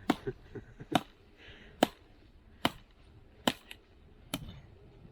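Wood being chopped for the campfire: six sharp strikes at an even pace, a little under one a second, with small clicks between them.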